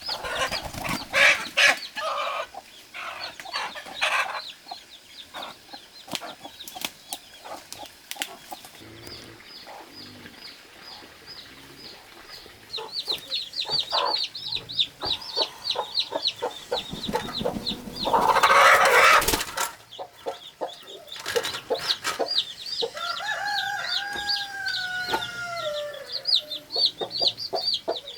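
Newly hatched chicks peeping, a steady run of rapid, high, short falling peeps, with a hen clucking lower down, loudest near the start. About two-thirds through there is a loud burst of noise lasting a second or two, and shortly after it two drawn-out falling calls.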